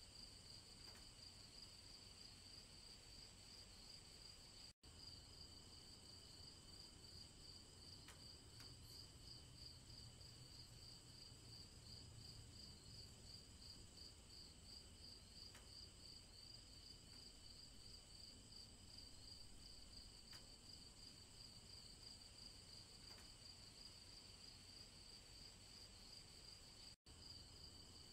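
Faint chorus of crickets: a steady, high, rapidly pulsing trill that cuts out for an instant twice.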